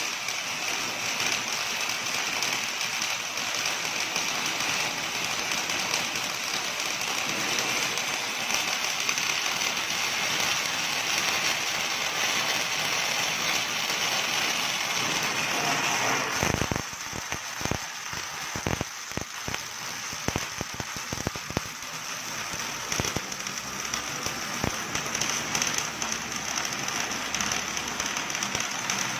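Automatic MIG welding arc crackling steadily as the CNC machine welds a seam on a vehicle axle. About sixteen seconds in, the even crackle turns quieter and uneven with scattered sharp pops, then steadies again.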